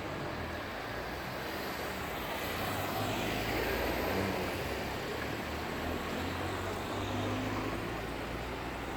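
A passing vehicle's engine rumble with its broad noise, swelling to its loudest about four seconds in and then easing off.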